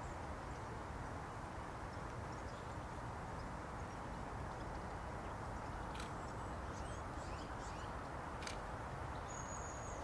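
Small birds chirping faintly in the hedgerow over a steady low outdoor background noise, with sharp clicks about six and eight and a half seconds in and a short high whistled note near the end.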